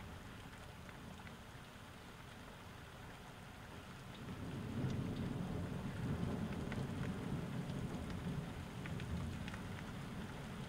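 Rain falling, with scattered sharp drip ticks, and a low rumble of thunder that builds about four seconds in and carries on.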